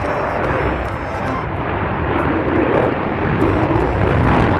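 Steady jet aircraft engine sound, a continuous dense roar without distinct strokes.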